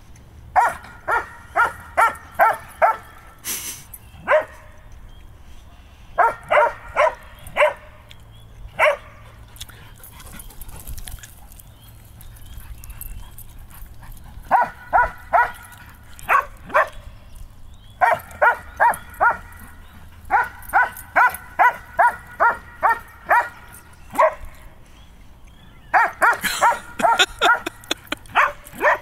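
A dog barking during a play chase, in quick runs of about two to three sharp barks a second separated by short pauses.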